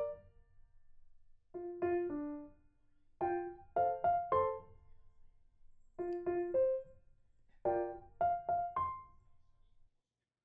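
Background piano music: short phrases of three or four notes, repeated every second and a half or so, stopping just before the end.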